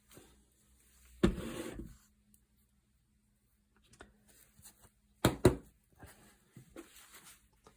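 Small objects being handled on a table: a short clatter about a second in, then two sharp knocks close together about five seconds in, with faint taps and rustles between.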